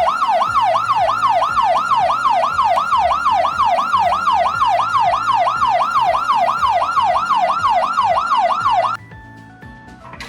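Toy fire engine's electronic siren, a fast yelp sweeping up and down about three times a second, cutting off suddenly about nine seconds in. Quieter background music plays under it.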